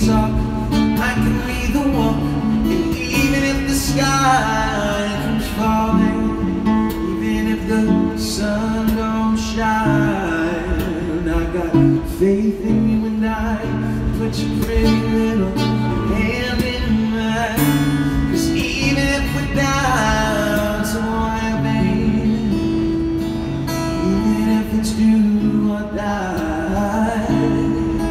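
A man singing while strumming an acoustic guitar, played live, the voice coming in phrases over steady chords.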